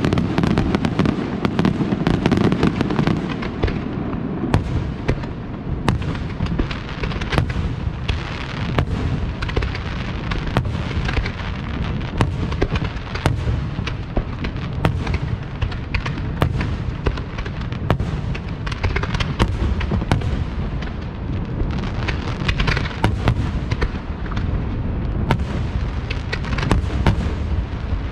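Fireworks display: a continuous barrage of aerial shell bursts and ground effects, sharp bangs coming every second or so over a steady rumble and crackle.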